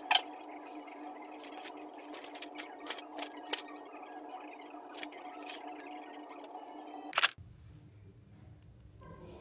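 A steady hum with scattered sharp clicks and taps, the loudest near the start, about three and a half seconds in and just after seven seconds. Just after that the hum cuts off abruptly and a lower rumble takes over.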